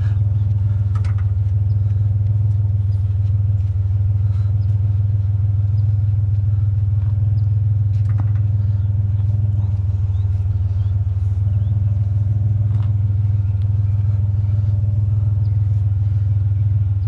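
Pickup truck engine idling with a steady low drone, with a few faint clicks and knocks of the load being tied down.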